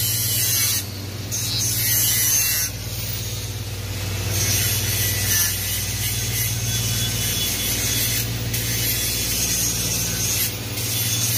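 Running chiller-plant machinery: a steady low machine hum under a loud rushing hiss. The hiss jumps up and down in level several times.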